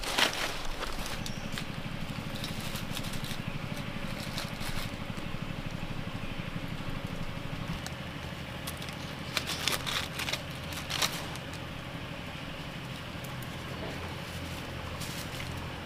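Dry leaf litter crackling and thin trap wire rustling as hands handle and set a wire chicken snare on the ground, with a cluster of sharper crackles about nine to eleven seconds in. A steady low hum runs underneath throughout.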